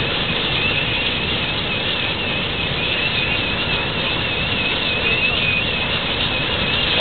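Steady loud rush of fire-hose water fog spraying onto an LP tank, with a high tone warbling up and down a few times a second above it.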